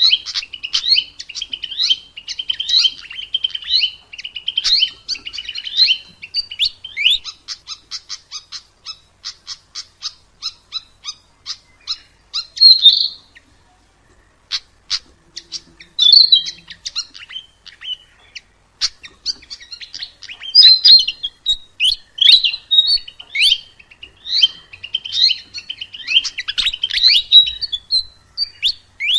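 Sikatan emas, a Ficedula flycatcher, singing: quick twittering phrases, then a long run of short dry ticks at about four a second, and after a brief pause the twittering song again.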